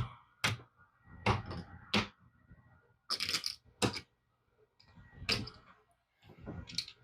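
A string of sharp, irregular clicks and clacks, about ten in all, some in quick clusters: chips being set down and handled on a craps table and dice being handled for the roll.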